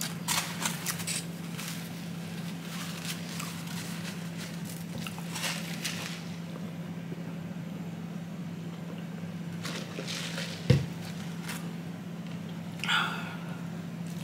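Close-up eating sounds: scattered wet mouth clicks and chewing in small clusters, with one sharp knock about ten and a half seconds in and a brief mouth sound near the end, over a steady low hum.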